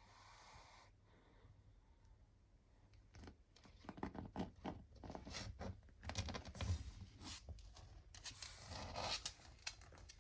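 A pug stirring in its sleep: a breath at the start, then several seconds of close rustling and scratching with many small clicks, and another breath near the end.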